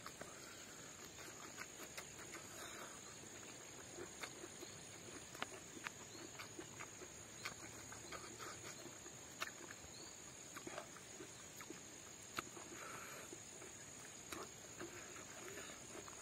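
Close-up mukbang chewing: wet smacking and mouth clicks as pork and vegetables are eaten by hand, in many short irregular bursts. Under it runs a steady high-pitched insect drone.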